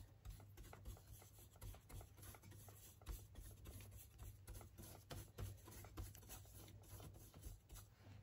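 Faint scratching of a paintbrush scrubbing thin oil paint onto a linen-covered panel, in short irregular strokes, over a low steady hum.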